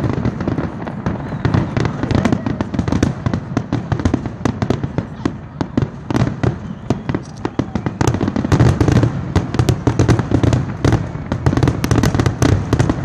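Fireworks finale barrage: aerial shells going off in rapid succession, many bangs a second, growing denser and louder about eight seconds in.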